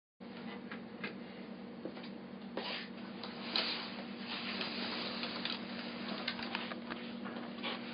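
Rustling and handling noise with scattered small clicks over a steady low hum in a small room. The loudest rustle comes about three and a half seconds in. The sound starts and cuts off suddenly.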